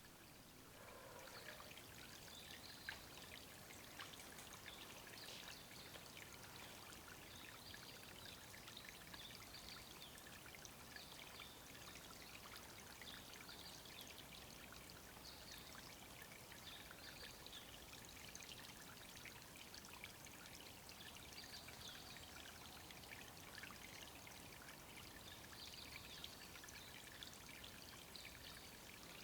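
Faint, steady trickle of running water at a woodland bird-watering spot, with short high-pitched sounds recurring every second or two.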